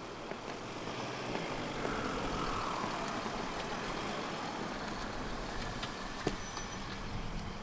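Mercedes-Benz S-Class saloon driving slowly past at parking speed, its engine and tyre noise loudest about two to three seconds in, then settling to a low steady idle as it stops in a parking space. A single sharp click comes a little after six seconds.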